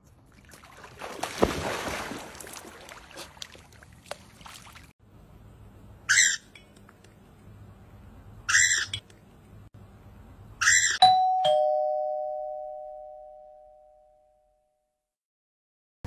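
Water splashing briefly. Then a small parrot gives three short, harsh squawks about two and a half seconds apart. A two-note doorbell chime, ding-dong, follows the last squawk and rings out over a few seconds.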